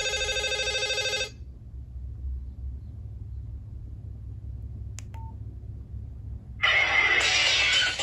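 Ringtones playing through a Nokia 5610 XpressMusic's loudspeaker. A rapidly pulsing chord of steady tones stops about a second in. After a pause with a click and a short beep, a louder, busier electronic ringtone starts about two-thirds of the way through.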